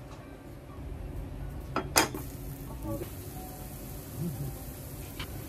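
Frozen hash brown patties sizzling faintly in olive oil in a nonstick frying pan, with one sharp clack about two seconds in.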